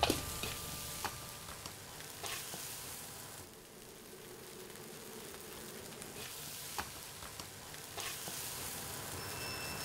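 Fried rice sizzling in a hot wok, with a few sharp clicks of the metal ladle against the wok as the rice is scooped out onto plates. The sizzle dips a little for a couple of seconds in the middle.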